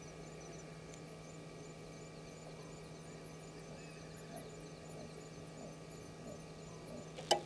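Steady low electrical hum, with many short high-pitched chirps scattered throughout and a single sharp click near the end.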